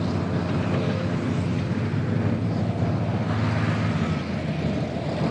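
Heavy diesel engine of an articulated off-road dump truck running steadily with a low drone and a rough rattle while it tips its load.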